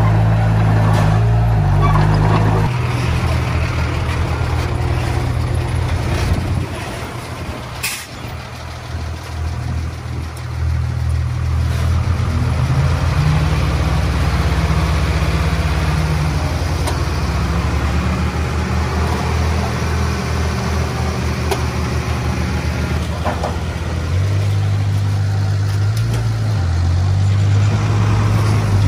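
Heavy earthmoving equipment's diesel engine running under changing load. Its pitch shifts a few seconds in and again near the end, and it eases off and picks back up in the middle. A brief sharp sound comes about eight seconds in.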